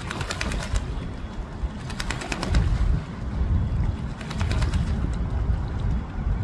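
Female mallard bathing, slapping its wings and splashing in shallow water in three bursts of quick splashes about two seconds apart, over a low rumble.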